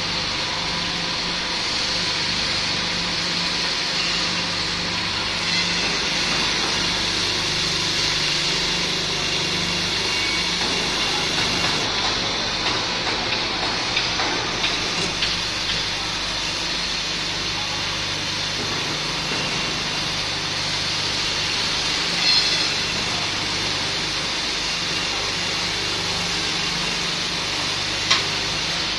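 A motor-driven spindle machine running steadily: a constant hum under a broad hiss, with a few light clicks and one sharper knock near the end.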